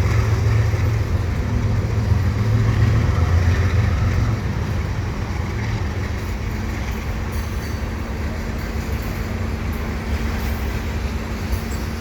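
Mid-train GE AC4400CW diesel locomotive, a distributed power unit, rumbling past with its V16 engine running, loudest for the first four seconds and then falling away as freight cars roll by.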